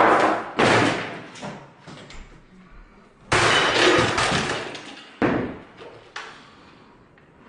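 Field hockey stick smashing a wooden table and a plastic drone: four hard crashing blows a second or two apart, each followed by clattering debris, the last one lighter.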